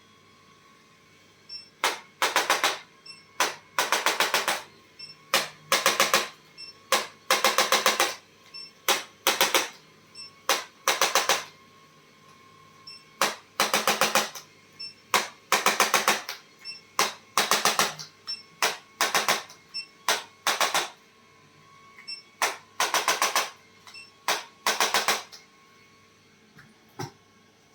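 Handheld electric percussion device tapping rapidly in short bursts of about half a second to a second, switched on and off again and again with brief pauses between.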